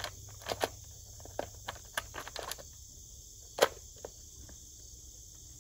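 Scattered short plastic clicks and knocks as the top cover of a Stihl MS 400 C chainsaw is fitted back on and its half-turn cover screws are worked. One sharp click stands out about three and a half seconds in.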